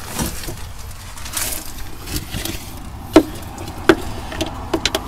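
Sharp metal knocks and clanks from tools being handled against the underside of a compact excavator. There are soft rustles first, then a loud knock about three seconds in, another a moment later, and several quicker knocks near the end.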